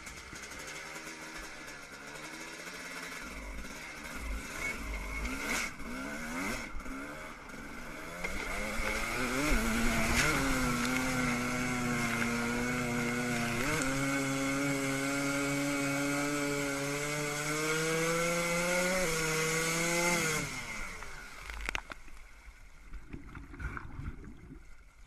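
Suzuki dirt bike engine revving, then held at high revs as the bike skims across water, its pitch creeping slowly upward. About twenty seconds in the revs fall away and the engine stops as the bike settles into the water, leaving faint splashing.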